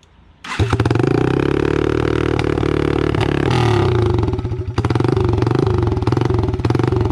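Yamaha TT-R225 dirt bike's single-cylinder four-stroke engine catching about half a second in on a fresh rebuild and running at a fairly steady speed. It is super loud, with the muffler left off.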